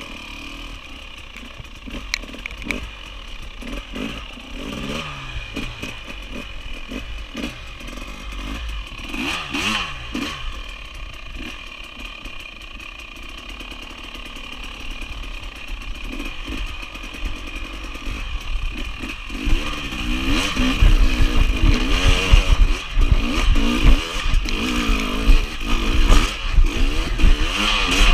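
Enduro dirt bike engine revving up and down under load while climbing a steep dirt hill, with rattling from the bike. The throttle is worked harder from about twenty seconds in, and the engine gets much louder over a heavy low rumble.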